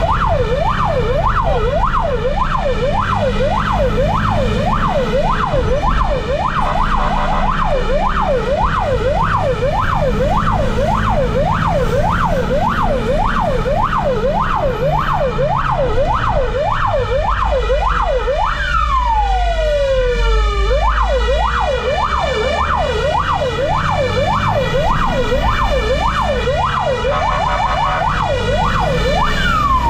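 Fire engine siren on a fast yelp, sweeping up and down about twice a second over engine and road rumble. About two-thirds of the way through, a separate falling tone glides down across it, and another near the end.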